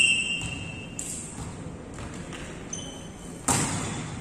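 A volleyball being struck in a rally: a lighter hit about a second in and a hard hit about three and a half seconds in, each ringing on in the echo of the large hall. High squeaks of court shoes on the floor come at the start and near three seconds.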